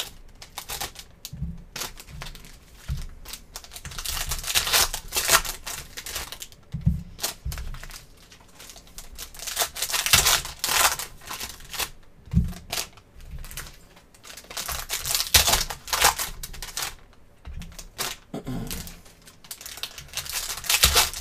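Foil wrappers of 2023 Panini Phoenix football card packs crinkling and tearing as hands rip the packs open one after another. The louder rips come in bursts every few seconds, with quieter rustling between them.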